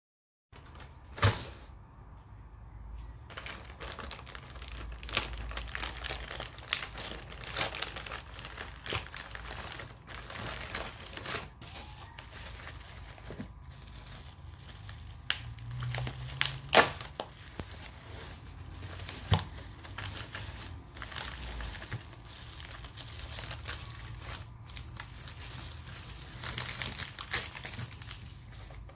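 Bubble-wrap packaging being handled and opened by hand: plastic crinkling and rustling throughout, broken by a few sharp clicks and knocks.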